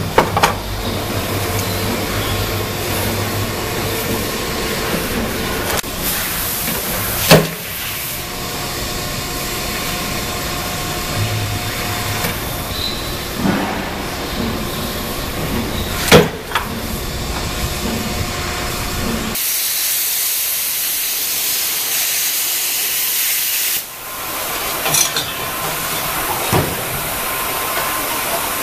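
O-Jung MW 808II hydraulic motor-wrecking press running with a steady hum, with a few loud sharp cracks and bangs as it breaks apart a scrap electric motor's case and stator. Later comes a strong steady hiss lasting about five seconds.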